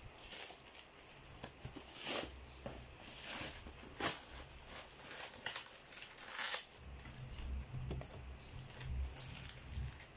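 Rustling, crinkling and a few light knocks from a tape-wrapped cardboard parcel being handled and set down on a desk, with a low rumble of handling noise in the second half.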